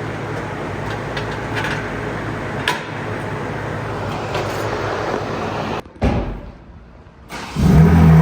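Steady shop noise with scattered clicks and knocks from work on the car. It cuts to quiet, and near the end the BMW M4's S58 twin-turbo straight-six starts and settles into a loud, steady idle through catless resonated downpipes.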